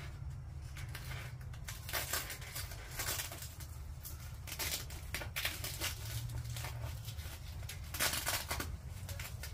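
Velcro straps being wrapped around a plastic part and fastened: short rasping rips and rustles at irregular intervals, the longest near the end, over a low steady hum.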